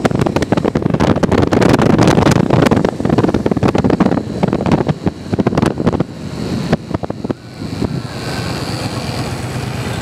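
Heavy wind buffeting on the microphone from a vehicle moving at road speed. It eases off about six seconds in as the vehicle slows, leaving a steady low engine hum near the end.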